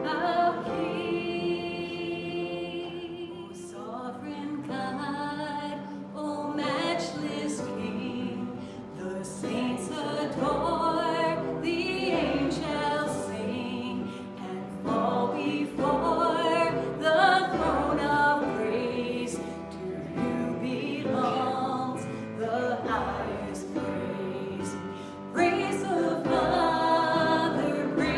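A choir singing, with voices holding long notes from phrase to phrase.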